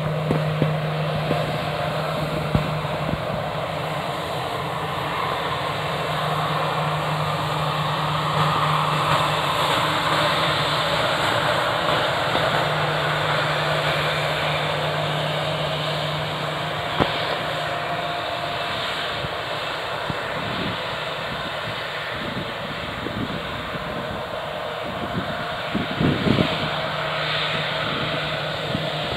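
Jet engines of an Airbus A320 airliner running at taxi power as it turns and lines up on the runway: a steady low hum under a broad rushing noise.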